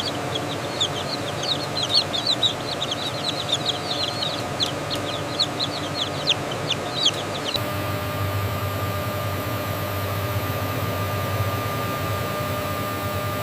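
A crowd of chicks peeping in quick, short, high chirps over a steady hum. About seven and a half seconds in, the peeping cuts off and only a steady mechanical hum with a thin whine remains.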